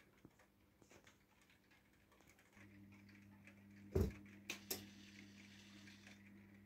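Model railway steam tank locomotive with its power on, a steady electrical hum that starts about two and a half seconds in, over faint ticking. A sharp click comes about four seconds in, and two lighter clicks follow half a second later.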